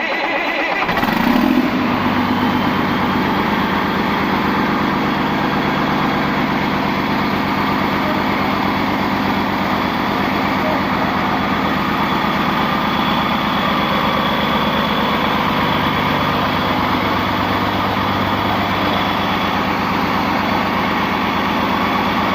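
Caterpillar bulldozer's diesel engine, freshly overhauled, catching about a second in and then running steadily at idle.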